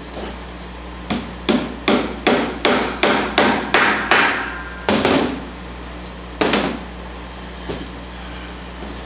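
Hammer driving tacks through canvas into a wooden stretcher bar: a quick run of about nine taps, roughly three a second, then two more separate blows and a faint last tap.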